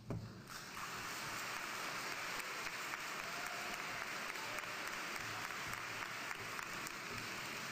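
Audience applauding steadily, a dense patter of many hands clapping that starts about half a second in.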